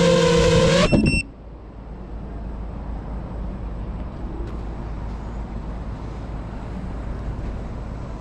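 FPV quadcopter's brushless motors whining steadily at idle, cutting off suddenly about a second in as the landed drone is disarmed, with a few brief high beeps. After that, only a quiet steady low rumble of outdoor background noise.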